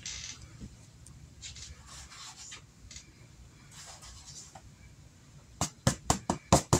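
Soft rustling of chopped fresh rosemary and thyme being sprinkled over chicken thighs in a cast iron skillet, then a quick run of about seven sharp taps near the end as a red flexible plastic cutting mat is knocked over the pan to shake off the last of the herbs.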